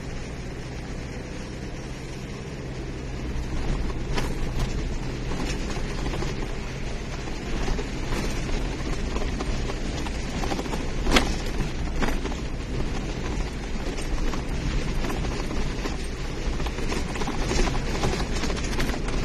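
Car engine and tyre rumble heard from inside the cabin while driving a rough dirt mountain track, getting louder from about three seconds in. Occasional knocks and rattles from the bumps come through, the sharpest about eleven seconds in.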